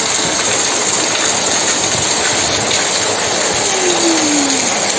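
Heavy rain pouring steadily onto a wet paved courtyard: a constant, even hiss of rain.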